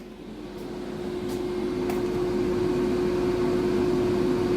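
Steady mechanical hum carrying one constant tone over a haze of noise, swelling gradually over the first couple of seconds and then holding level.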